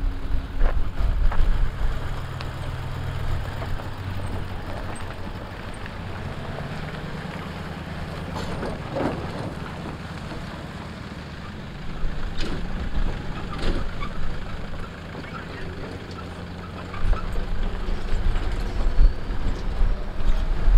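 Four-wheel drives towing boat and jet-ski trailers driving slowly past one after another on a dirt track, engines running at low revs, with a few knocks along the way. It gets louder about two-thirds of the way in and again near the end as the next vehicles come past.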